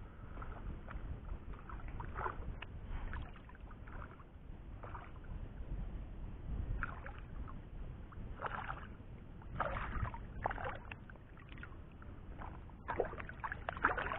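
Hooked wild tilapia splashing at the water's surface as it is played in on a rod, in irregular splashes that come more often towards the end as the fish is brought to hand.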